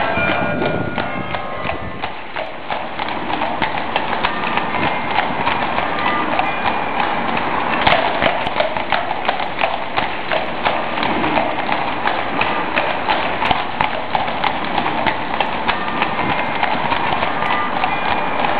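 Horse's hooves clip-clopping on cobblestones, a steady run of sharp knocks about two a second.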